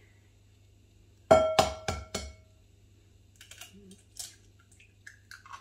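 An egg knocked against the rim of a glass mixing bowl, about five quick knocks a little over a second in, each setting the glass ringing. Fainter clicks of eggshell being pulled apart follow.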